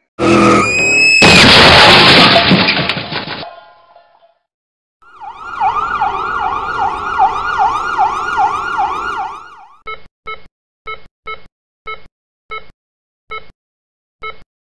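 Car-crash sound effects: tyres screech briefly, then a loud crash fades away over about three seconds. After a short pause an emergency-vehicle siren wails in quick up-and-down sweeps for about five seconds. Then an electronic patient monitor beeps about twice a second.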